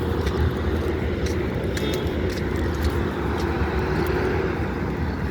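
Asphalt milling machine at work: a steady heavy diesel drone with a steady hum and grinding noise above it as the machine cuts up the old road surface, with a few scattered clicks.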